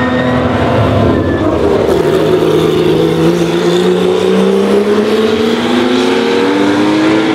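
Historic race car engine under hard acceleration, its note rising steadily in pitch for several seconds from about two seconds in.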